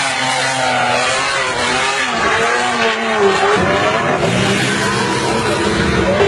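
SUV engines revving hard in loose desert sand, the pitch rising and falling several times over a steady hiss.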